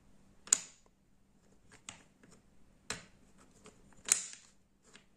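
Wooden jigsaw puzzle pieces clicking and knocking against each other and the table as they are fitted together. There are two sharper clacks, about half a second in and about four seconds in, with lighter taps between.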